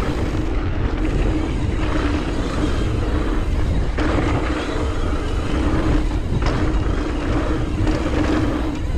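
Mountain bike riding down a dirt bike-park trail: steady rumbling noise of tyres and wind with a constant buzzing tone, changing in roughness every second or two.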